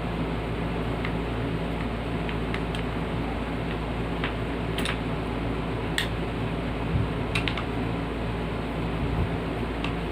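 Scattered light clicks and taps from the box fan's plastic parts being handled, over a steady low mechanical hum.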